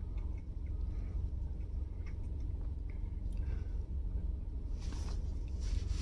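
Gloved hands handling a bundle of scooter motor wires and plastic connectors: faint small ticks, then a louder rustling near the end, over a steady low rumble.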